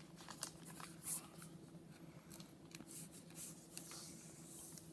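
Faint rustling and light ticks of a comic book being handled and turned over, over a low steady hum.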